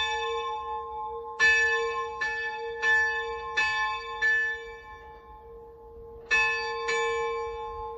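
Two bronze church bells tuned to a'' and c-sharp''', cast in Salzburg in 1693 and 1779, ringing together in a full peal. The strokes come irregularly and thin out, with a pause of about two seconds before two last strokes, while the hum rings on. The peal is dying down as the bells come to rest.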